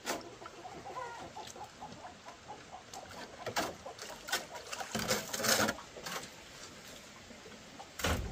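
Chicken clucking, a run of short repeated notes about a second in, with several knocks or thumps later and a louder thump near the end.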